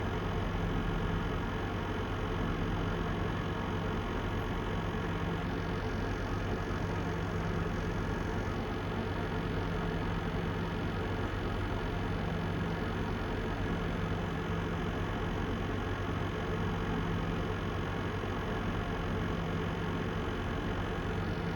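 NZXT Kraken X63 all-in-one liquid CPU cooler running with a steady hum and a continuous scratchy crackling, the 'karikari' noise. The owner understands it to be caused by air trapped in the coolant loop.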